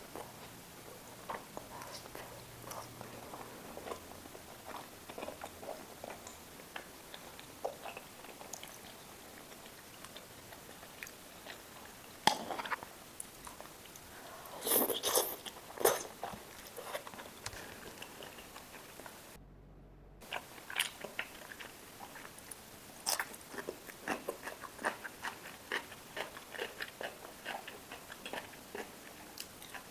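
Close-miked eating: biting and chewing food with many small wet mouth clicks and crunches. There is a louder cluster of bites about halfway through, and a brief cut to silence a little later.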